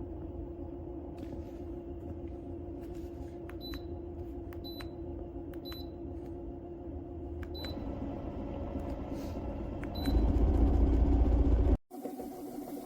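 Pofart vibration plate's motor humming steadily while the plate does not vibrate, a sign the machine has malfunctioned. Five short beeps sound a second or two apart. About ten seconds in, a much louder low rumble comes in for under two seconds and cuts off suddenly.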